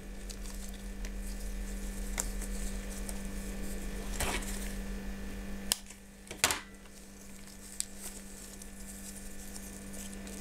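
A steady low electrical hum, with three soft clicks about four, five and a half and six and a half seconds in as orchid roots are handled and trimmed.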